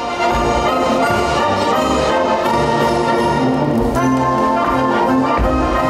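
Orchestral music led by brass, playing steadily at full level, with a change in the chords about four seconds in.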